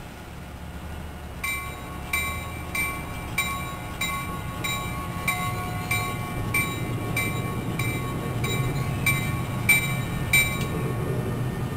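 A bell strikes at a steady pace, about three strikes every two seconds, and stops near the end, over the low rumble of an NJ Transit commuter train with multilevel double-deck cars. The rumble grows louder toward the end.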